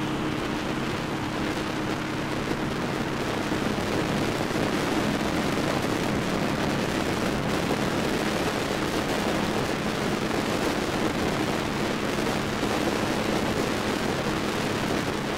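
Kawasaki KLR650's single-cylinder engine running steadily at cruising speed, with heavy wind rush over the microphone.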